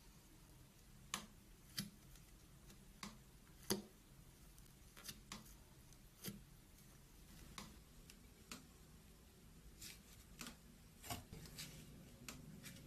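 Slime being handled, giving faint sharp clicks and little pops at irregular intervals, roughly one a second.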